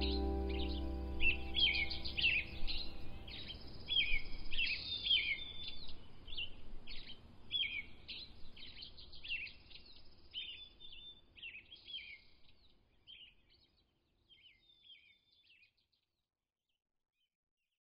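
Small songbirds chirping in quick, repeated notes that grow sparser and fade out near the end, over the last of some background music fading away in the first few seconds.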